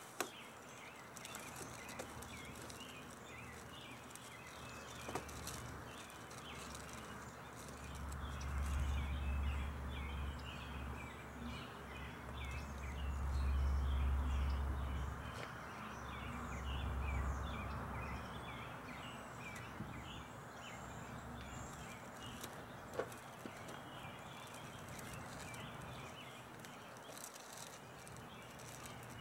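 Outdoor ambience of many small bird chirps throughout. A low rumble swells and fades over about ten seconds in the middle and is the loudest sound. There are a few faint clicks.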